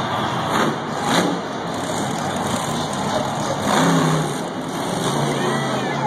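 Monster truck engines running and revving, with a steady loud din.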